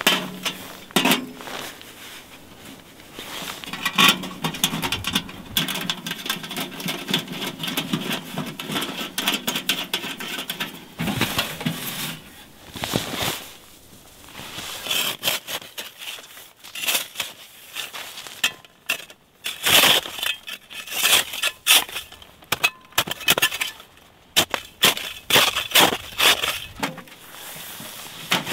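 Irregular metallic clinks, knocks and scrapes of a thin sheet-metal tent stove and its parts being handled, fitted together and set down on snow, coming thickest in the second half.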